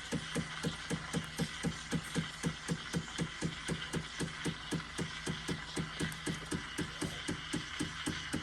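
Espresso machine steam wand hissing into a jug of milk, the steam pulsing about five times a second as the milk rolls and heats for a latte.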